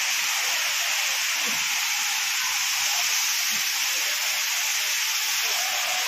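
Waterfall pouring down a rock cliff onto boulders: a steady rushing hiss of falling water that doesn't let up.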